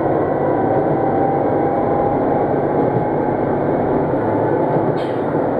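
Ise Railway train running along the line, heard from inside the passenger car: a steady rumble of wheels and motion with a faint whine and a brief click about five seconds in.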